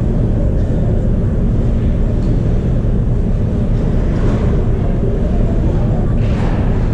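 Steady low rumble with no clear pitch, with faint brief hissing sounds about four and six seconds in.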